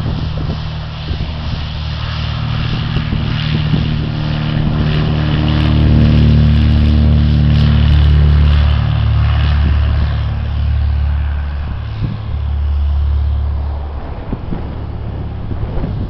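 Cessna 172's piston engine and propeller at full takeoff power as the plane rolls down the runway past and lifts off. The sound swells to its loudest about six to nine seconds in, then fades as it climbs away, with wind rumbling on the microphone.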